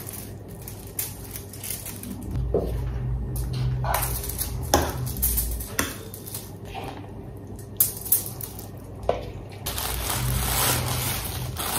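A metal fork scrapes and taps against plastic bowls as cooked instant noodles are turned out onto a foil-lined tray, with scattered sharp clicks and clatter. A low rumble comes in twice.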